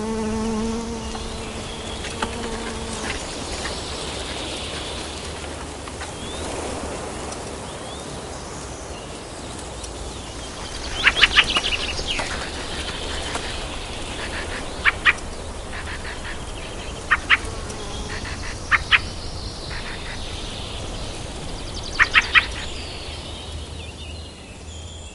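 Forest ambience: a steady hiss over a low hum, with an insect-like buzzing tone for the first few seconds. From about eleven seconds in, a bird's short sharp calls come in quick groups of two to four, several times over.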